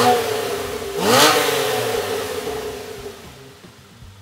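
2013 Porsche 991 Carrera S's 3.8-litre flat-six, breathing through a Fister aftermarket sport exhaust, free-revved twice while standing. The first rev peaks right at the start and a second sharper one comes about a second in, its pitch sinking slowly back to a steady idle over the next two seconds.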